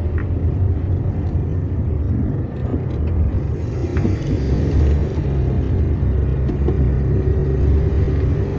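Steady low rumble of a car's engine and tyres, heard from inside the cabin while driving slowly on a street.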